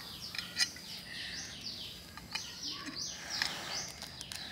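Small birds chirping in a quick run of short falling chirps, with a few faint clicks as crayfish shells are peeled by hand.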